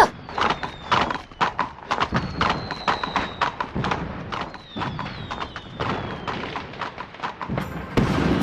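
Fireworks going off: a quick, irregular string of sharp pops and crackles, with several thin whistles falling in pitch.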